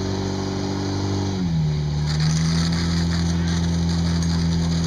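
Engine-driven portable fire pump running steadily; about a second and a half in its note drops and settles lower as it takes up the load of the hose lines, and a hiss of water spraying from the nozzles joins it.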